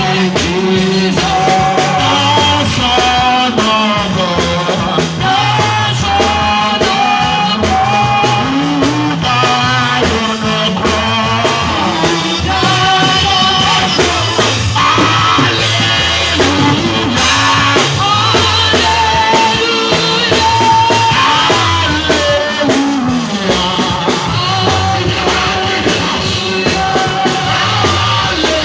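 A song with a singing voice over a band of guitar and drums, loud and continuous.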